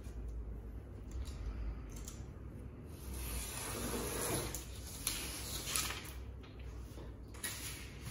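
Utility knife drawn along a steel ruler, slicing through window tint film: a scratchy hiss starting about three seconds in and lasting a few seconds, with a couple of sharp clicks.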